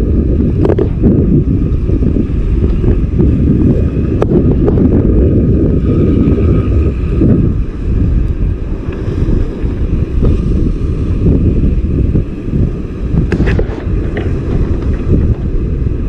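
Strong wind buffeting the microphone: a loud, steady low rumble, with a few faint clicks.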